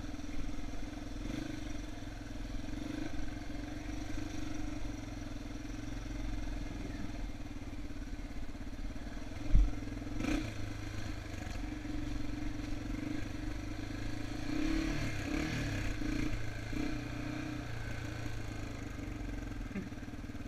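Yamaha TT-R230's single-cylinder four-stroke engine running steadily while the bike is ridden along the trail. A sharp knock about halfway through is followed by a lighter one.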